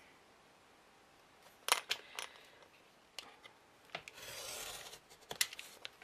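A craft knife drawing along a metal ruler through chipboard: one scraping stroke of about a second, about two-thirds of the way through. A few sharp clicks come before and after it.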